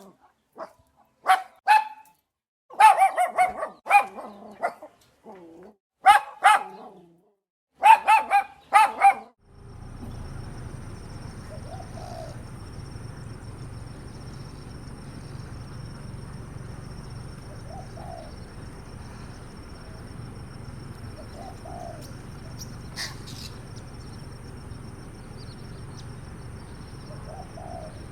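An animal calling in short, loud pitched bursts, about a dozen in the first nine seconds. Then a steady, quieter outdoor background with a faint, high, steady whine and a few faint, short calls.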